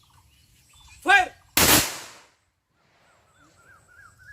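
A short shouted command, then one loud rifle volley fired as a gun salute, cracking sharply and fading over about half a second.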